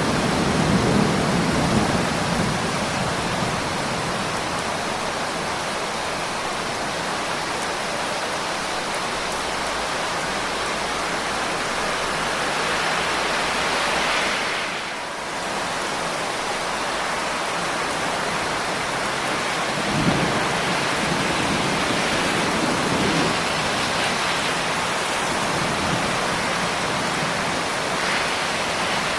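Steady, heavy rain as an even hiss, with the tail of a low thunder rumble fading out over the first couple of seconds. The rain briefly dips about halfway through.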